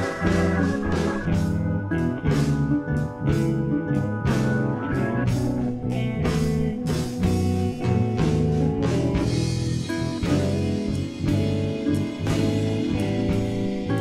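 Instrumental twelve-bar blues backing track in E at a slow 60 bpm. It moves through the end of the progression (A, E, then the B chord of the turnaround) and back to the top of the chorus on E and A.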